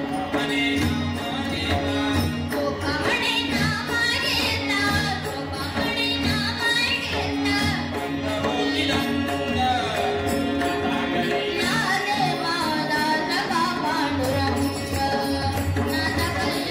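Many pakhawaj barrel drums played together in a steady devotional rhythm, with a wavering sung melody over them.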